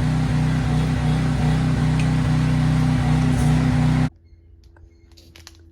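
Engine-driven Hobart stick welder running steadily, its engine note under the hiss of a stick-welding arc. Both cut off suddenly about four seconds in, leaving only a faint low hum and a few light clicks.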